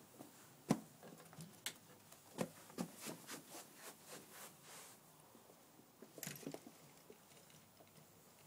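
Ferrets scrambling and playing: irregular light knocks, clicks and scuffles. There is one sharp knock about a second in, a run of small taps over the next few seconds, and a brief scuffle near the end.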